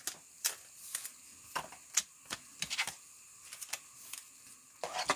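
Trading cards being handled while going through a pack: a run of light, irregular clicks and snaps from the cards, about two or three a second, a few coming in quick pairs.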